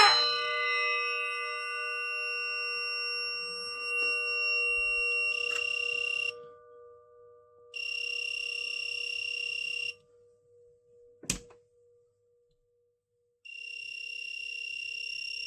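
An electronic fire alarm buzzer sounds a steady, high-pitched, slightly rasping tone in three bursts: a short one about five seconds in, a longer one a couple of seconds later, and a third near the end. The two-tone warble of the alarm sounder cuts off at the very start, leaving a lower tone that fades away. A single sharp click comes between the second and third bursts.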